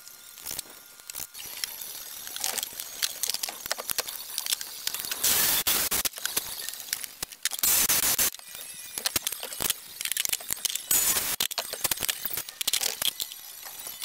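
Many small clicks and clinks of hard objects being handled, with three brief hissing rushes about 5, 7.5 and 11 seconds in.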